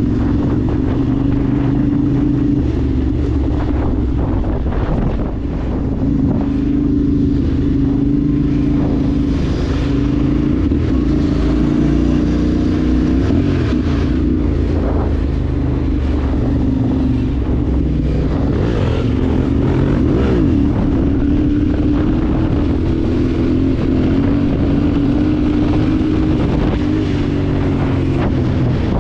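Vehicle engine running steadily at cruising speed, its drone holding an even pitch with a brief wobble about twenty seconds in, with wind noise on the microphone.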